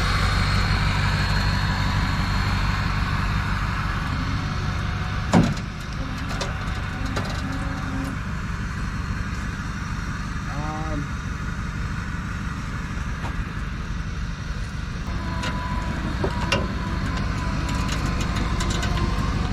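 Pickup truck engine running steadily at idle, with one sharp knock about five seconds in and a few lighter clicks later.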